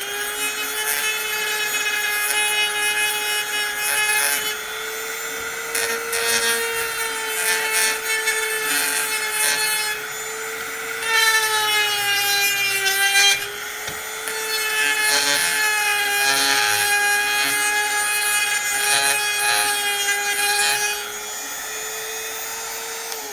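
Small high-speed rotary tool with a grinding bit running steadily while it grinds down a piece of PVC pipe. A constant motor whine is overlaid by rasping as the bit bites, and the pitch dips slightly under load around the middle.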